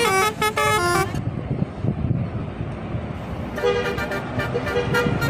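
Bus telolet horn playing a quick tune of short stepped notes that stops about a second in. After a couple of seconds of toneless rumbling noise, another telolet tune of stepped notes starts up.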